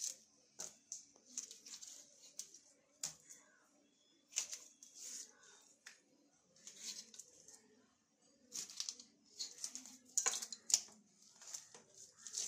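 Chicken skin and feathers being ripped off by hand on a wet board: a run of irregular short tearing and wet scraping noises, coming in quick clusters, loudest about ten seconds in.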